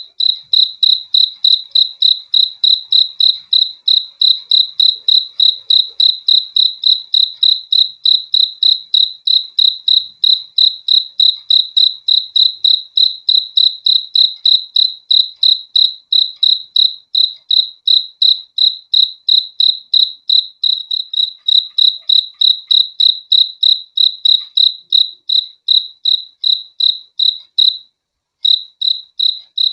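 Cricket chirping: one high-pitched chirp repeated evenly about three to four times a second, with a brief pause near the end.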